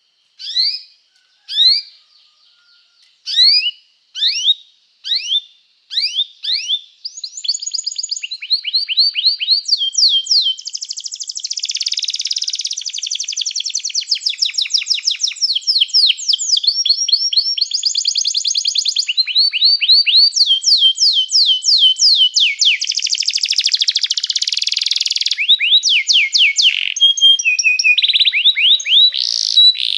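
Domestic canary singing. It opens with a few single rising chirps about a second apart, then runs into a long song of fast rolling trills that switches to a new trill pattern every second or two.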